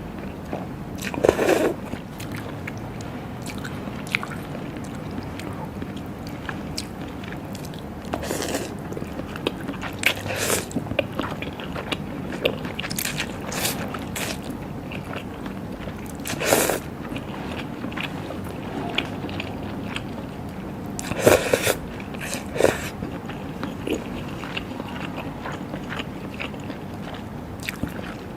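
Close-miked eating sounds: wet bites and chewing of raw seafood and salad, with irregular crunchy bites every few seconds, the loudest near the start and about two-thirds of the way in.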